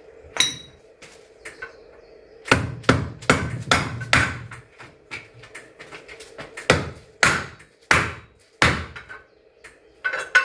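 Small hammer striking repeatedly, knocking connectors onto the aluminium frame tubes: a quick run of blows a few seconds in, then slower single blows.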